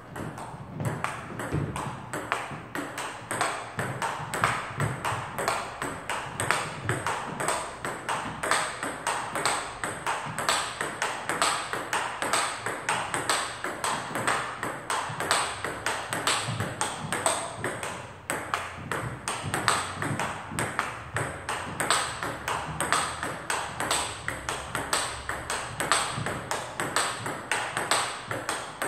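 Table tennis ball being hit back and forth in a continuous practice rally: quick, regular clicks of the celluloid-type ball off the paddles and the table, several a second, with a brief break about two-thirds of the way through.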